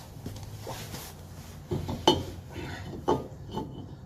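Metal clinking and clanking as a brake rotor is handled and slid onto the new wheel hub, a few sharp clinks with short ringing, the loudest about two seconds in and again about three seconds in.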